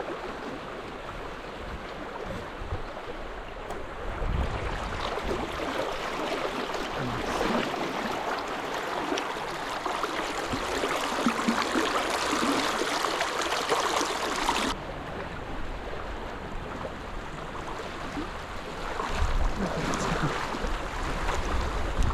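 River water rushing steadily over a shallow riffle. It grows louder and brighter through the middle, then changes abruptly about fifteen seconds in, with low wind buffeting the microphone near the start and end.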